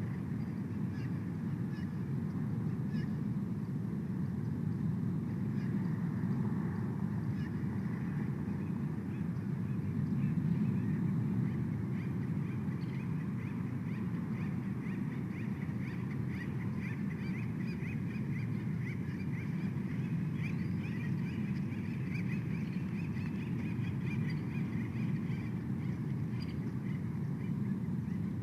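Birds calling in quick, high, repeated notes over a steady low rush of wind on the outdoor nest camera's microphone; the calling thickens into a fast run in the middle.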